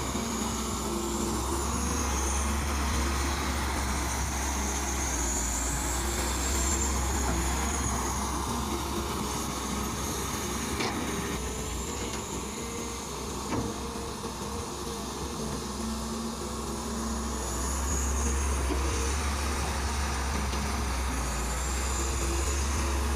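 Kobelco hydraulic excavator running as it digs and pushes soil: a steady low diesel drone that swells and eases with the load, with a faint wavering high whine. Two light knocks come near the middle.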